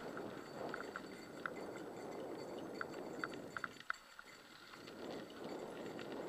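Mountain bike rolling fast along a dirt trail: steady tyre noise with irregular light clicks and rattles from the bike, easing briefly about two-thirds of the way through.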